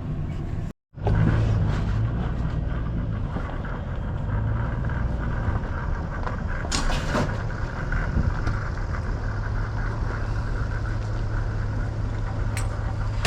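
Vehicle engine idling steadily with a low, even hum while stationary on a scrap yard scale, with a brief noise about seven seconds in.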